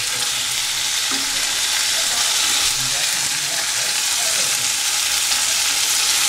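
Boiled egg halves sizzling steadily in oil and onion-tomato masala in a pan, with a spatula stirring and turning them.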